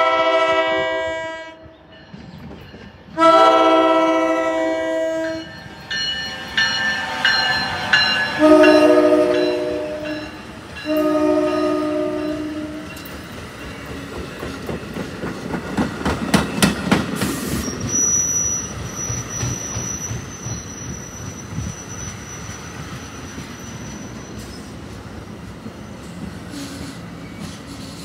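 NJ Transit ALP-46 electric locomotive's air horn sounding four chorded blasts as the train approaches. Then the train's multilevel coaches roll slowly past over the rails with a burst of wheel clatter, followed by a steady high squeal that lasts several seconds as the train slows into the station.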